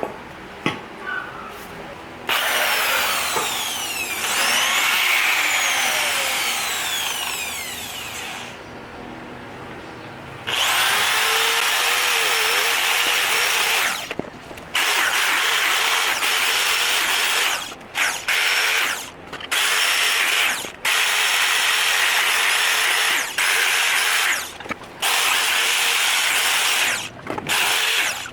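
Handheld power tool working rust off a steel motorcycle exhaust pipe. It runs for about six seconds, stops, then starts again and runs in a string of stretches of a few seconds with brief pauses between them.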